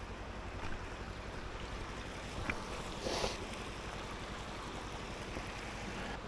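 Motorcycle engine idling steadily while stopped at a creek crossing, with flowing water hissing around it and a brief rustle about three seconds in.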